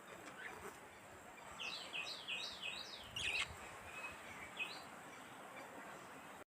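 Budgerigar chirping: a quick run of about five short notes, each sliding downward, followed by one louder, sharper call and a couple of faint chirps, over a faint hiss. The sound cuts out abruptly at the very end.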